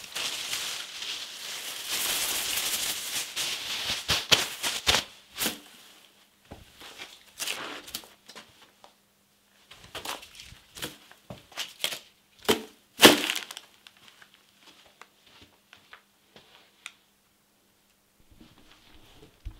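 Plastic bin liner crinkling and rustling as a hand rummages in a wastebasket: a dense stretch of crackling in the first few seconds, then scattered crackles with two loud crunches about 12 to 13 seconds in, thinning out near the end.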